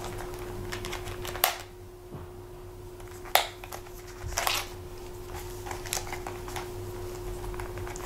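Handling noise of a pocket knife and a multitool being slipped into and out of a leather belt holster: light rustling with a few sharp clicks, the loudest about a second and a half and three and a half seconds in.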